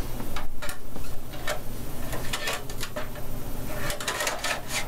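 Irregular clicks, taps and scraping of hard plastic as the top dust filter and panel of a PC case are handled.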